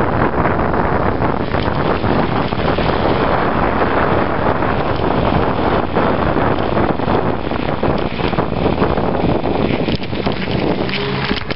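Steady, loud wind noise on the microphone of a moving e-bike, mixed with the noise of studded tyres rolling over a snowy road.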